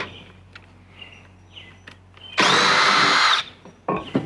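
Power drill running in one short burst of about a second, a steady whine that spins up and winds down, as a combination drill-and-tap bit cuts threads into a thin steel plate. A few sharp clicks follow near the end.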